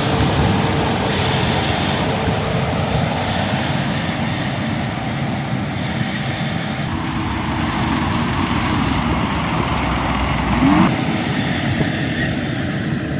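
Rice combine harvester running close by while it cuts and threshes the paddy, a steady, loud mechanical rumble.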